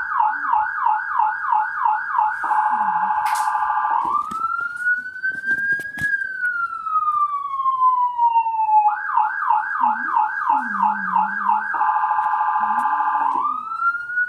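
Recorded electronic emergency siren played through a Bluetooth speaker, cycling through its modes: a fast yelp of quick up-sweeps, about three or four a second, then a rapid warble, then a slow wail that rises and falls. The cycle starts over about two-thirds of the way through.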